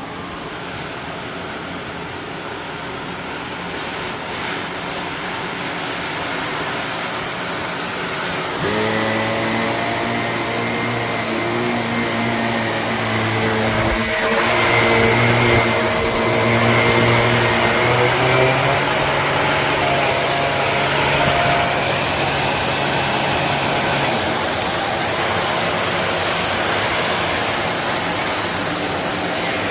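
Shark NV360 Navigator Lift-Away upright vacuum running, its rushing airflow growing louder over the first several seconds. A steady low hum joins it from about nine seconds in until about twenty-four seconds.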